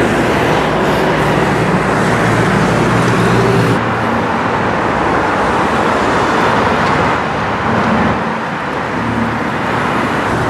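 Busy road traffic, with cars passing close by, engine hum and tyre noise. It eases a little near the end.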